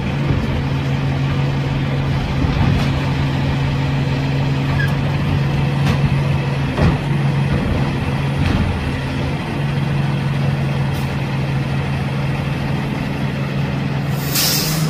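A Freightliner M2 garbage truck's diesel engine runs with a steady hum, with a few sharp knocks partway through. Near the end comes a short, loud burst of hissing air as the air brakes release and the truck moves off.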